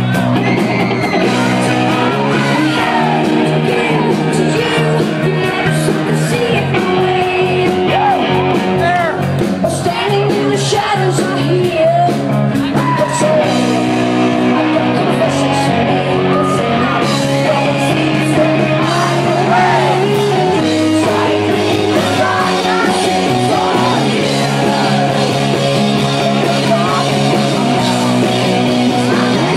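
Live rock band playing loud, with a woman singing lead over guitar, steady bass notes and drums.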